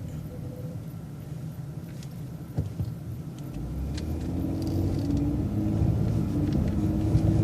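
City transit bus driving, its engine and road rumble steady at first, then growing louder with a rising engine note from about three and a half seconds in as the bus speeds up. A single sharp knock sounds a little before the middle.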